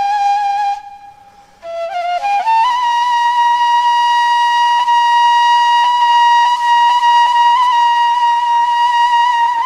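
Kaval, the long Bulgarian end-blown flute, playing a slow melody. It holds one note, breaks off for a short breath about a second in, climbs in a few quick steps to a higher note, and holds that long note, decorated with brief quick flicks.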